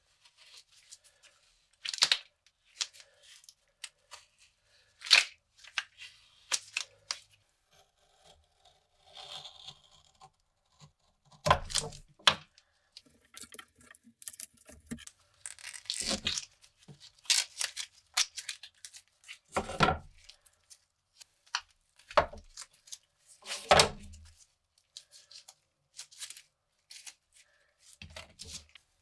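Old black tape being peeled and torn off a rusty machete's riveted handle in irregular rips and crackles. Several dull knocks against the wooden workbench come in among them.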